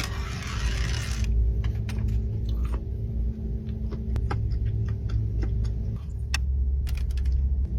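Close-miked eating: many short crunchy clicks of chewing and biting over a steady low rumble, with a brief hissy rustle in the first second.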